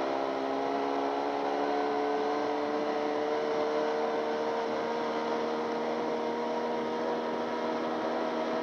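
Outboard motor running steadily at wide-open throttle, about 5,300 RPM, its pitch creeping slightly upward. The motor's tilt has just been reset to stop the boat porpoising, and the engine is picking up a few more RPM.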